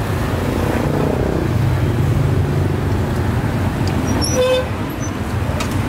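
Steady rumble of road traffic, with one short horn toot about four and a half seconds in.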